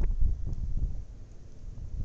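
Wind buffeting the microphone in a snowstorm: uneven low gusts that ease off after about a second.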